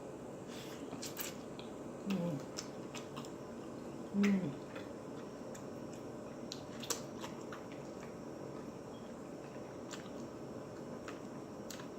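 Close-miked chewing of food, with lip smacks and sharp mouth clicks scattered throughout. Two short low hums of the voice, falling in pitch, come about 2 and 4 seconds in and are the loudest sounds.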